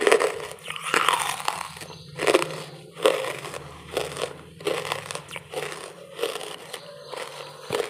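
Close-miked crunching of charcoal lumps being bitten and chewed, a crisp crunch about once a second.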